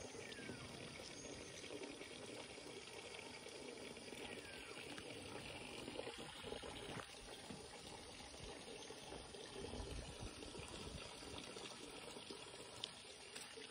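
Faint, steady sound of running, trickling water.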